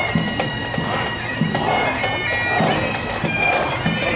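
Bagpipes of a marching pipe band playing a tune, steady drones sounding under the changing chanter notes.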